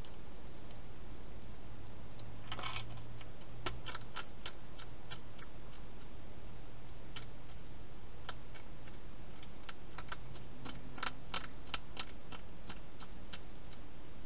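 Hedgehog chewing dry food: irregular crunchy clicks that come in two bunches, over a faint steady low hum.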